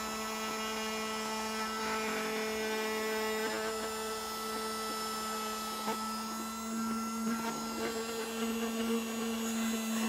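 Battery-powered mini desktop vacuum cleaner running steadily, its small motor giving a constant hum as the nozzle is passed over a tabletop, with a few faint ticks of particles being sucked up.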